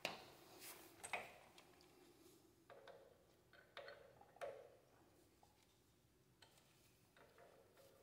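Faint, irregular metallic clicks and taps of a wrench working a disc brake caliper's mounting bolt into its bracket, the sharpest right at the start and about a second in.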